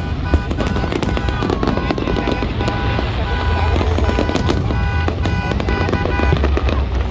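Fireworks going off in quick, irregular bangs and crackles over a constant low rumble, with music playing at the same time.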